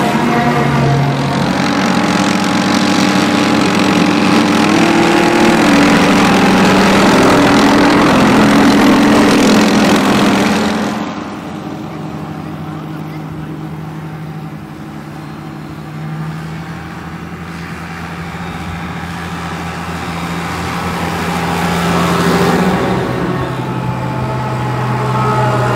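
M113 tracked armoured personnel carriers driving past, engines running. One passes close and loud; about eleven seconds in the sound drops suddenly, and then the next carrier's engine grows steadily louder as it approaches.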